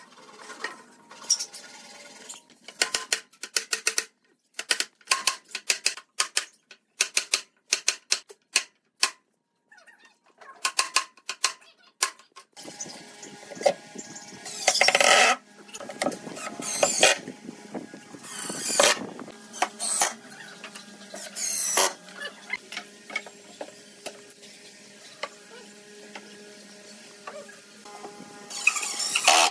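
Wooden boards knocking and clattering in quick short hits as pine cabinet parts are handled and fitted together. From about halfway, a cordless impact driver runs in about six short bursts, driving screws into the pine boards; the first burst is the longest.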